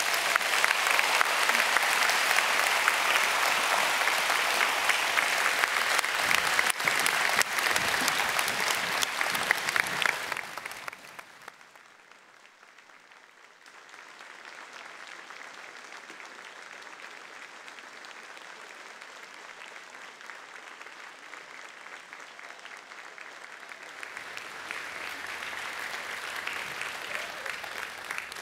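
A large audience applauding. The clapping is loud for about ten seconds, drops suddenly to a much softer level, then swells slightly again near the end.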